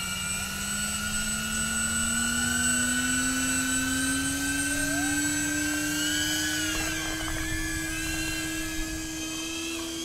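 DJI Avata FPV drone's electric motors and propellers whining in flight, the pitch slowly rising over the first half and then holding, with a few brief wavers later on.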